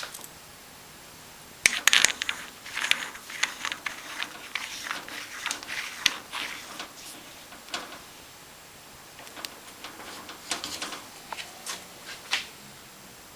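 Small hard parts clinking and scraping against each other and a hard surface: a quick flurry of light clicks, loudest about two seconds in, a pause, then a sparser run near the end.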